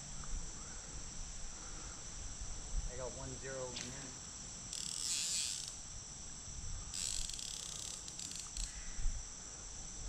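Steady high-pitched chorus of crickets trilling, with two brief louder buzzing bursts about five and seven seconds in.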